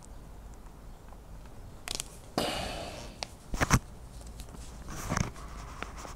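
Hand riv nut tool being squeezed to set M6 rivet nuts in the motorcycle's mounting bracket. There are a few sharp metallic clicks about halfway through, with fainter handling rustles and clicks around them.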